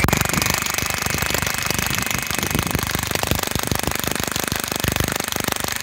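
Classic Army M132 Microgun airsoft minigun firing one long, unbroken full-auto burst, a rapid, even rattle of shots.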